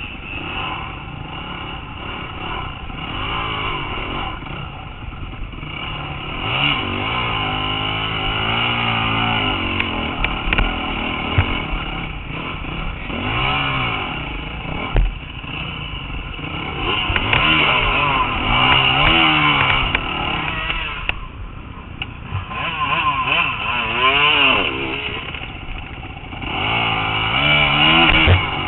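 Dirt bike engine under hard riding, its pitch climbing and dropping over and over as the throttle is opened and shut, with scattered knocks and rattles from the bike over rough ground.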